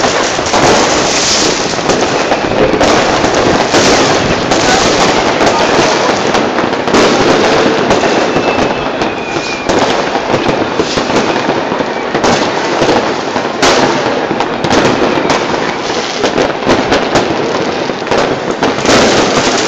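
New Year's Eve fireworks and firecrackers going off all over a city at once: a dense, unbroken crackling with countless overlapping bangs.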